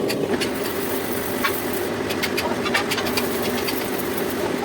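Metal lathe running with a steady hum, with scattered short, sharp metallic clicks.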